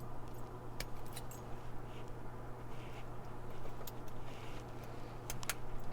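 Lock pick and tension tool working the pins of a laminated steel padlock: scattered small sharp metal clicks, a few close together near the end, with soft scraping, over a steady low hum.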